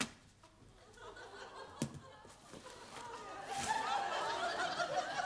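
Studio audience laughter swelling from about three seconds in and carrying on, after a knock at the start and a sharp click a couple of seconds in.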